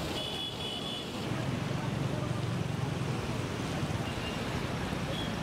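A muddy river in flood, rushing steadily: an even, unbroken noise of fast-moving water.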